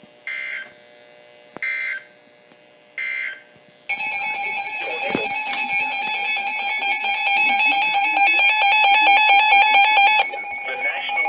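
Three short bursts of Emergency Alert System data tones, about a second and a half apart, the end-of-message signal closing a tornado warning. About four seconds in, a loud, continuous electronic alert tone starts for the next alert and drops in level just after ten seconds.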